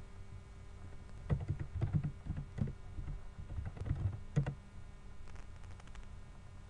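Typing on a computer keyboard: an irregular run of key clicks for a few seconds, then only a few faint ticks.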